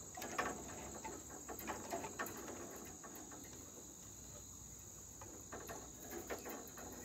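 Crickets chirping in a steady high trill, with a few soft rustles and taps in the first couple of seconds and again near the end.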